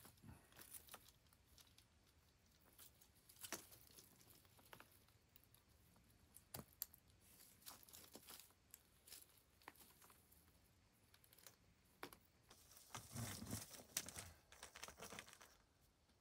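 Faint handling noise of a black electrical cable being worked and coiled by hand: scattered small clicks and rustles, with a louder stretch of rustling and crinkling about thirteen seconds in.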